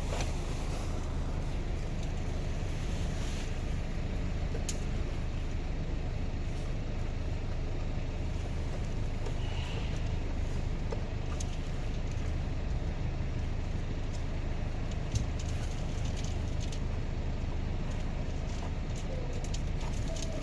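A steady, low engine hum, as of a vehicle idling, with a few faint clicks and taps of plastic parts being handled.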